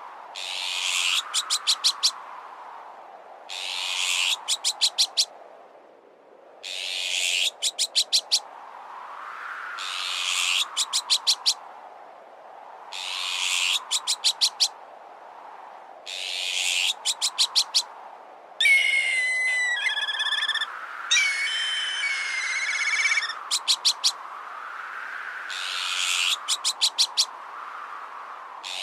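Looped bird-repellent sound mix: a harsh bird alarm call, a rasp ending in a quick rattle of pulses, repeats about every three seconds over wind that swells and fades. In the middle it gives way to two whistled bird calls lasting a couple of seconds each.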